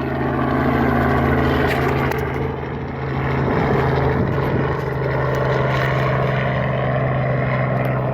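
Helicopter running, a steady mechanical hum of rotor and engine with a slight dip in level about three seconds in.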